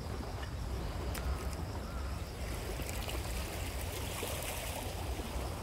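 Steady wind rumble on the microphone over the wash of seawater among the shore rocks.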